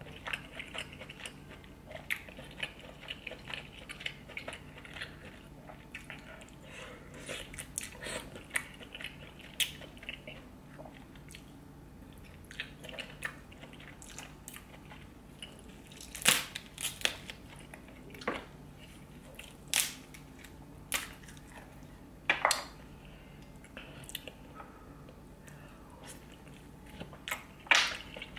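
A person chewing and biting into seafood boil: soft mouth noises with frequent small clicks, and a few sharper, louder snaps in the second half.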